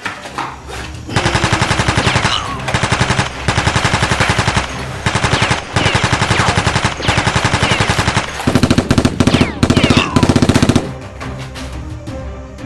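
Rapid automatic gunfire in repeated bursts of about a second each, the last and loudest running about two seconds before it stops near the end. It is likely a dubbed-in machine-gun sound effect.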